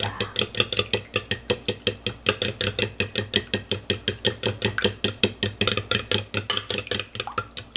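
A fork beating eggs and milk in a glass bowl: a fast, even run of clicks as the fork strikes the bowl, about six a second.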